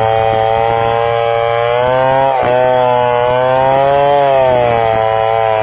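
A 070 two-stroke chainsaw running flat out while ripping lengthwise through a log to cut boards. Its engine note wavers under load and dips briefly about halfway through as the chain bites, then picks up again.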